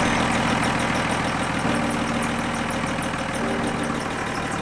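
Sailboat's inboard diesel engine running steadily, heard through its open engine hatch, with a light fast ticking over the hum. It is running on a freshly changed fuel filter after fuel contamination trouble.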